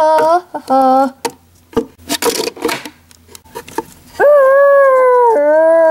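A child's voice making wordless sounds for a toy character: two short high calls, a breathy hiss, then a long high held cry that drops in pitch near the end.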